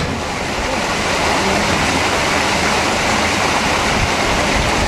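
Water gushing from the station's filling pipe into the ballast tank of a Victorian water-balance cliff-railway car, a steady rushing pour that builds over the first second. The tank is being filled to make the car heavy enough to descend and haul the other car up.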